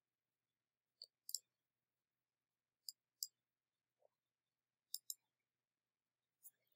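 Faint computer mouse clicks: three quick pairs of clicks a couple of seconds apart, then one more near the end.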